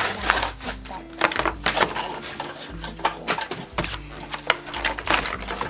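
Plastic blind-bag packaging crinkling and being torn open by hand, with irregular clicks of small plastic pieces being handled.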